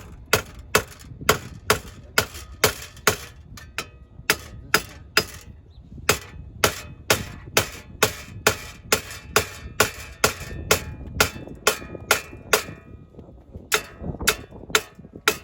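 Hammer striking a 2009 Cadillac CTS's hub bearing assembly to drive it out, the bearing being worn and stiff. The sharp metallic blows come about two to three a second, each ringing briefly, with short pauses about four seconds in and near the end.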